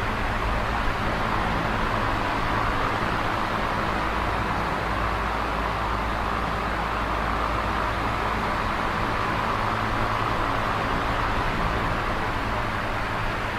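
Large box fan running steadily at high power: a constant rush of moving air with a low motor hum beneath it.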